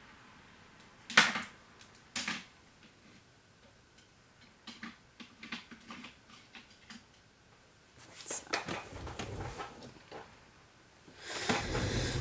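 Two sharp clicks about a second apart, then faint ticks and taps and a stretch of soft rustling, from small hard objects such as nail polish bottles and nail tips being handled and set down.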